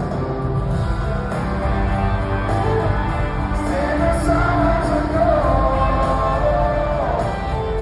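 Live country concert music with singing, a band played loud over the arena PA and picked up from among the crowd in the stands.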